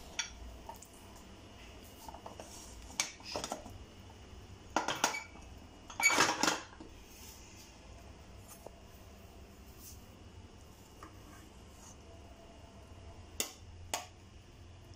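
Pressure cooker lid being taken off and a steel ladle clattering and scraping against the cooker pot as cooked rice is scooped out. There are a few short metallic clatters, the loudest about six seconds in, and two light knocks near the end.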